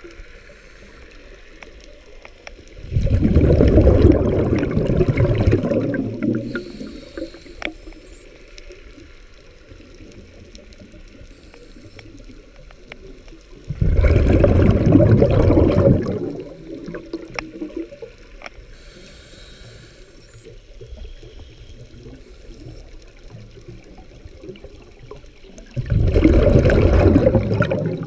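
Underwater sound: three loud bursts of bubbling about twelve seconds apart, each lasting two to three seconds, typical of a diver's exhaled breath, over a low steady water hiss with faint scattered clicks.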